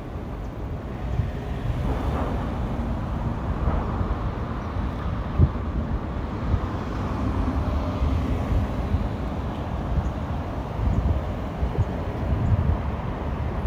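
Street traffic: cars driving past on the road, their tyre noise swelling about two seconds in and easing off later, over a low, uneven rumble of wind on the microphone.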